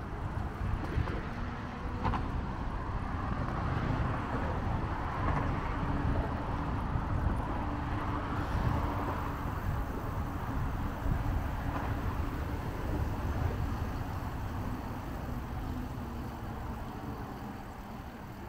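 Wind buffeting the microphone of a camera moving along an outdoor path, an irregular low rumble throughout.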